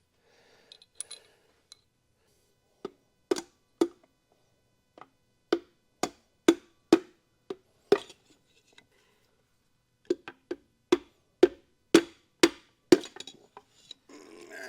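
A hammer knocking the pistons and rods of a Ford 300 inline-six out of their cylinder bores: sharp, ringing knocks about two a second, in groups with short pauses.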